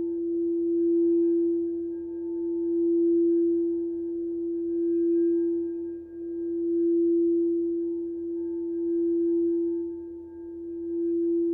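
Sustained singing bowl tone: one steady low note with fainter higher overtones ringing above it, swelling and fading about every two seconds.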